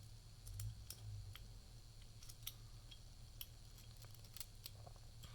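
Faint, irregular metallic ticks and light scraping of a lock pick working the pin stack inside a Defiant deadbolt's keyway while a tension tool holds the plug.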